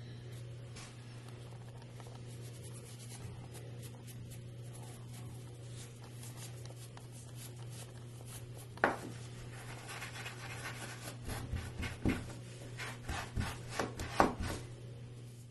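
A pad of steel wool rubbing wooden ash and black walnut checker pieces by hand to smooth the dried first coat of finish. The rubbing is scratchy and comes in the second half, with a sharp click about nine seconds in and small knocks of wooden pieces being handled, over a steady low hum.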